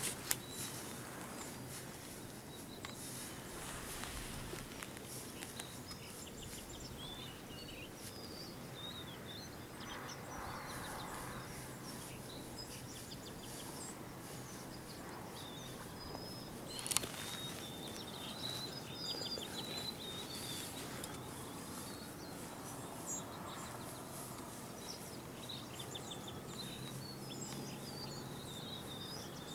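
Scattered high chirps and short calls of small birds over a steady outdoor background hiss, with a sharp click near the start and another about midway.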